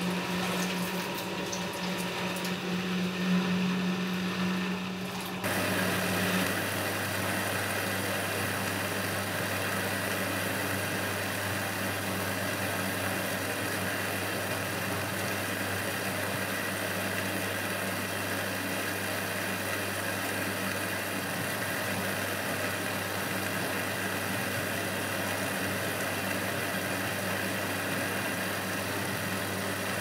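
Eudora Supernova 1002 front-loading washing machine in its main wash, its drum turning a large wet load. For the first five seconds or so a steady hum runs with a sound of water. Then it changes suddenly to an even, steady motor hum.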